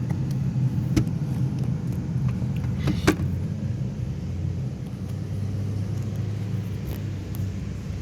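Samsung digital inverter refrigerator running with a steady low hum, broken by two sharp clicks about one and three seconds in.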